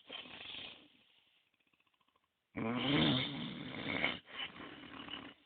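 A person snoring: the end of one snore, a pause of about a second and a half, then a long, louder snore that briefly breaks partway through.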